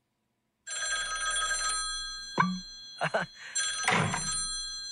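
A high, bell-like ringing tone made of several steady pitches starts about half a second in. It drops away partway through and returns strongly near the end, with a few short squeaks and clicks in the gap.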